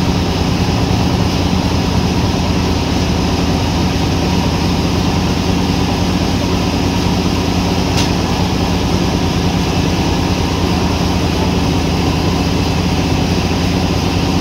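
Sawmill machinery running steadily with a deep, even hum, and a single sharp click about eight seconds in.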